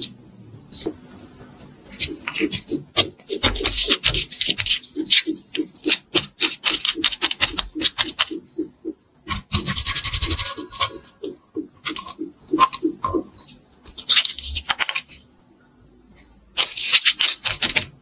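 Hands squishing and handling modeling clay: a quick run of small clicks and squishes, with a longer rubbing sound about halfway through as a plastic roller is worked over it.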